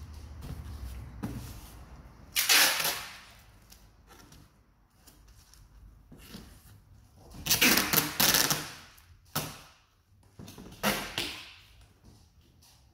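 Packing tape ripped off the roll in three loud pulls a few seconds apart, the middle one longest, with softer tape and cardboard handling noises between, as a cardboard box is taped shut.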